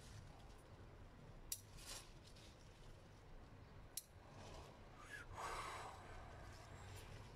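Three faint sharp clicks as tender chili pepper shoots are cut off the plant, then a soft rustle of leaves as the cuttings are gathered.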